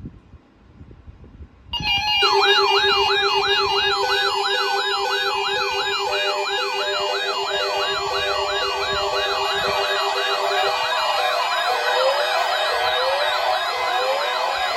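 Several weather radio receivers sound their alert alarms at once, set off by a NOAA Weather Radio Required Weekly Test. After a short pause they start about two seconds in: overlapping siren-like wails about twice a second, a rapidly pulsing low beep and high warbles. The low beep stops about eleven seconds in, and a steady tone joins later.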